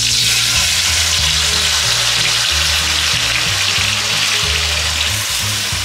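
Blended onion paste sizzling loudly in hot butter and oil just after being tipped into the pan, the hiss easing slightly toward the end.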